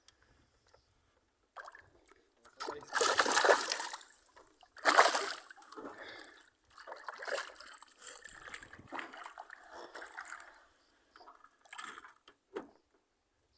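Water splashing in irregular bursts as a large tambaqui thrashes at the surface while being landed. The two loudest splashes come about three and five seconds in, followed by lighter sloshing.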